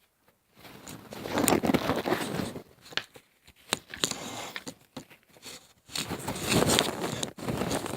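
Rustling and knocking handling noise close to the microphone as a phone is moved and propped in place, in two spells with scattered sharp clicks.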